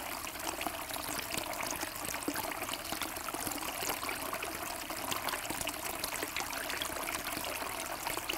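Small bubbler jet in a stone urn fountain, its water falling back into the shallow bowl: a steady trickling and splashing with many small droplet ticks.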